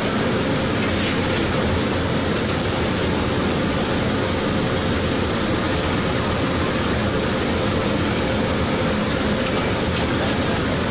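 Steady, even rushing background noise with no distinct events and a faint steady hum.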